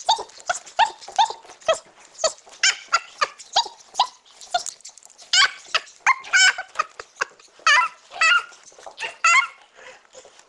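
Pug puppy yapping in a rapid run of short, high-pitched barks, about two to three a second, while play-fighting.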